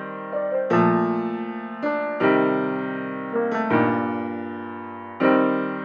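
Background piano music: slow sustained chords, a new one struck about every second and a half, each fading away before the next.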